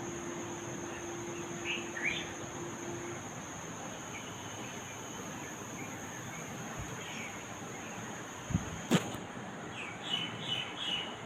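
Birds chirping in short, scattered calls over a steady background hiss, with a quick run of chirps near the end. Two sharp knocks, the loudest sounds, come about eight and a half and nine seconds in.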